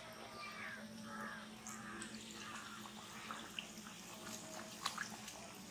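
Donut dough frying in hot oil in an iron kadai, a faint steady sizzle, with a few bird calls in the background during the first two seconds and small clicks later on.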